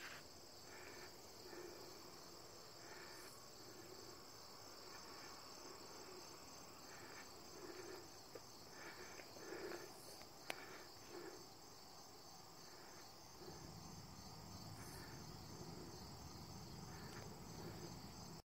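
Faint, steady chorus of crickets and other insects, a continuous high trill. There is a single sharp click about ten seconds in, and a low rumble joins from about thirteen seconds in.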